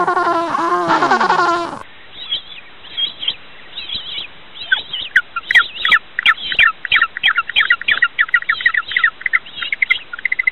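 A penguin's harsh, pitch-bending braying call for the first couple of seconds, then a different recording of short, high, falling chirps that come sparsely at first and, from about five seconds in, in a quick run of about four or five a second.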